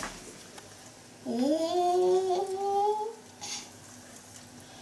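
A young child's voice humming one drawn-out note that rises in pitch and then holds for about two seconds, followed by a brief soft hiss.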